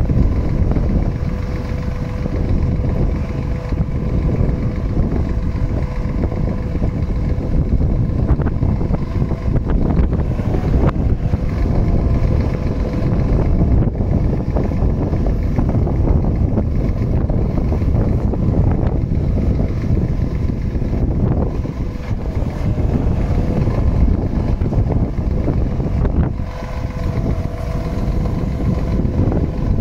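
Wind buffeting the microphone over the steady running of a Scania R490 truck, its engine powering the loader crane as the boom unfolds. A faint steady whine runs through it, changing pitch slightly near the end.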